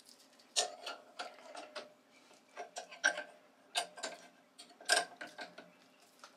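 ER32 collet nut on a lathe collet chuck being tightened with a C-spanner: irregular metallic clicks and clinks as the spanner's hook engages the nut and turns it, with a few sharper clicks.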